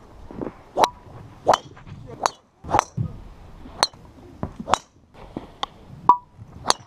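Golf club heads striking golf balls: about nine sharp, ringing clicks at irregular intervals.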